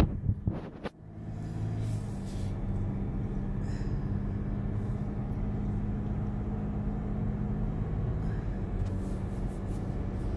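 Car engine and road noise heard from inside the cabin, a steady low drone as the car pulls away and drives on. A sharp knock sounds right at the start.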